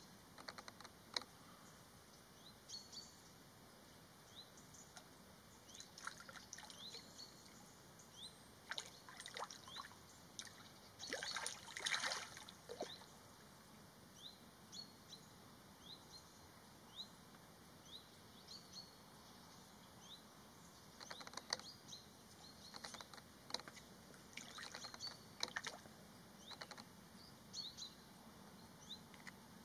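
Faint bird chirps outdoors: short, sharp rising notes repeated about once a second, with a louder cluster of calls about eleven to twelve seconds in and more busy stretches past twenty seconds, over a faint steady hiss.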